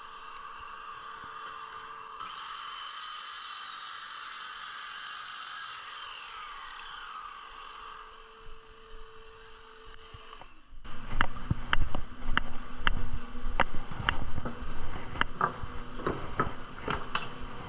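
Workshop sounds: a steady hiss with a faint falling tone, then, after an abrupt cut about ten seconds in, a louder run of sharp knocks and clatter over a low steady hum.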